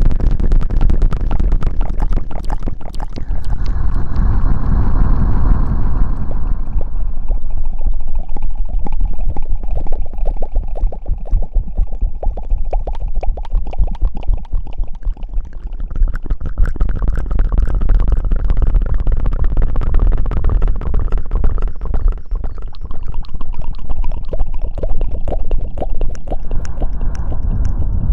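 Close-miked ASMR rubbing and rustling on the microphone: dense fast crackling over a heavy low rumble, going on without a break.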